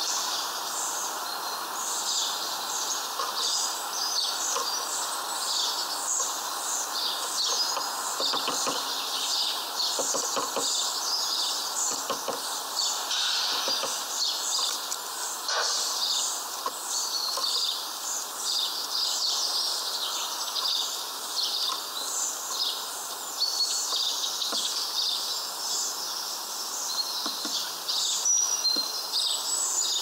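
Many small songbirds chirping continuously: a dense run of short, high-pitched chirps over a steady background rush.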